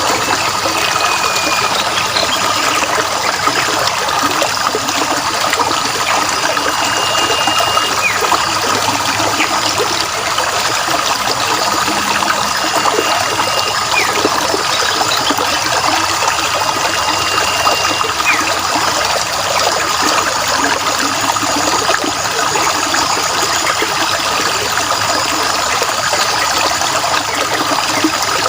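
Running water trickling steadily, with a bird's long, high, even whistle ending in a quick drop, repeated four times at intervals of a few seconds.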